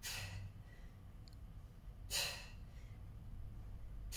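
A woman breathing out hard twice, about two seconds apart, with the effort of band-assisted dips.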